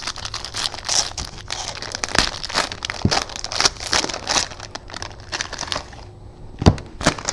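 Plastic wrapping crinkling and tearing as a pack of hockey cards is unwrapped, followed by two sharp knocks near the end.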